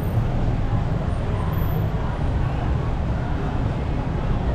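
Busy street ambience: a steady murmur of crowd voices over a low rumble, with no single sound standing out.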